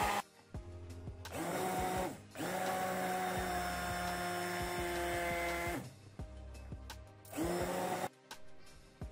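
Electric stick blender run in three pulses through a thick mash in a plastic beaker: a short burst about a second in, a longer one of about three seconds, and a brief one near the end. Each burst rises in pitch as the motor spins up, then holds a steady whine.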